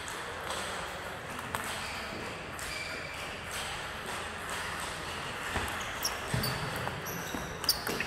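Table tennis ball clicking against the table and bats: a few scattered sharp ticks over steady hall noise, coming more often in the last couple of seconds.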